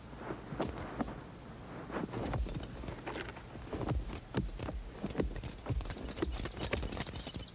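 A series of irregular sharp knocks and clicks, two or three a second, over a low steady hum.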